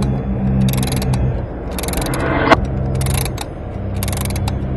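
Four short bursts of rapid mechanical ticking, about a second apart, over a steady low rumble, with one sharp click about two and a half seconds in.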